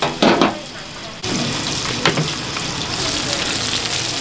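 Pan-fried dumplings sizzling on a large flat griddle; about a second in, the aluminium lid is lifted and the sizzle suddenly becomes a loud, steady hiss. A brief loud noise comes at the very start, and a short knock about two seconds in.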